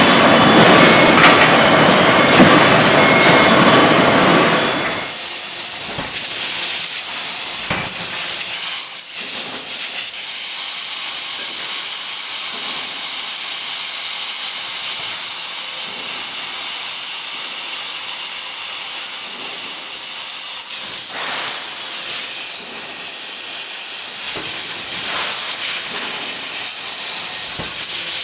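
Forging hammer and forge-shop machinery: a loud rushing noise for the first five seconds, then a steady hiss with a few faint knocks.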